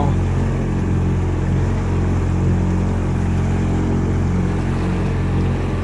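20 hp Yamaha outboard motor running steadily at part throttle while pushing a small boat along, during its one-hour break-in.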